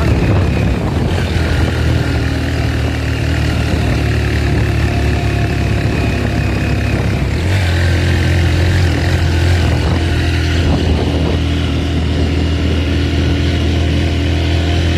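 Small motorcycle engine running steadily under the rider on a rough dirt road; its note changes about halfway through.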